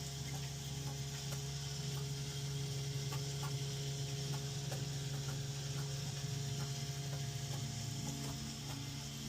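Electric bilge pump running with a steady low hum, pumping out the flooded boat, with a few faint ticks over it.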